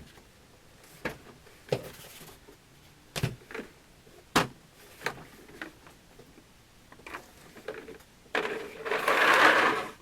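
Scattered clicks and knocks of metal tools and a plastic tool case being handled. Near the end comes a longer, louder scraping rustle of about two seconds.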